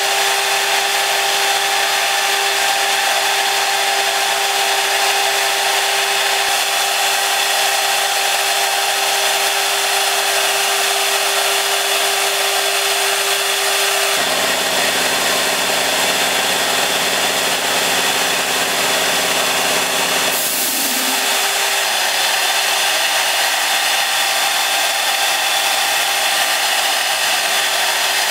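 Five-axis CNC router's high-speed spindle running steadily while a thin engraving bit mills a water-cooled stone block: a steady whine over an even hiss. The lower tones shift about halfway through.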